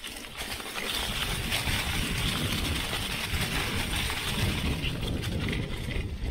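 Mountain bike riding downhill over dry leaves and grass: tyres rolling and rattling, with wind rumbling on the microphone. The noise grows about a second in and stays steady.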